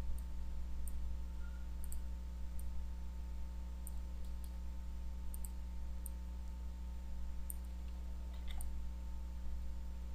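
Computer mouse clicking now and then, short faint clicks at irregular intervals with a slightly stronger cluster near the end, over a steady low hum.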